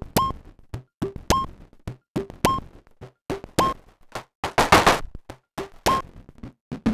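Moog DFAM analog percussion synthesizer playing a sequenced pattern of short percussive hits: a pitched, electronic blip repeats a little over once a second among lower thumps, with a longer, noisier hit near the middle.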